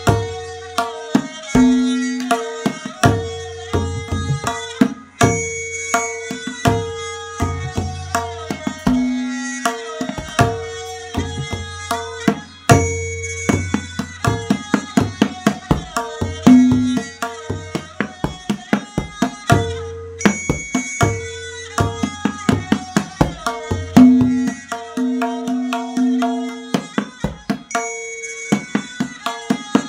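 Tabla played in jhaptaal, the ten-beat cycle, over a looping lehra, the repeating melodic accompaniment. Fast dayan strokes ring at a steady tuned pitch while the bayan adds deep bass strokes, and the lehra's phrase comes round about every seven to eight seconds.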